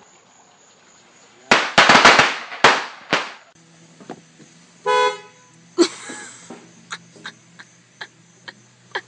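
A quick string of loud firecracker pops lasting under two seconds, then a single short car horn honk about five seconds in, followed by a few faint clicks.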